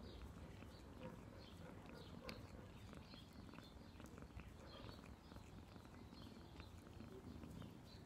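Domestic cat grooming itself: faint licking of its paw, a scatter of small wet clicks, over a quiet steady purr.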